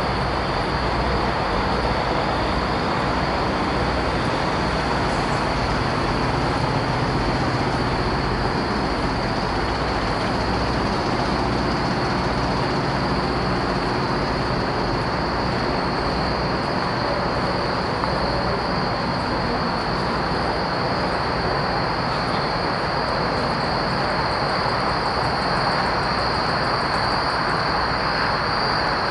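Idling diesel engines of parked semi trucks: a steady low rumble with an even hum, and a steady high-pitched tone above it.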